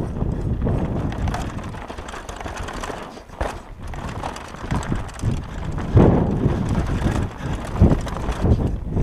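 Downhill mountain bike running over a rough dirt and stone track: tyres crunching and the bike rattling and knocking over the bumps, louder and busier from about six seconds in.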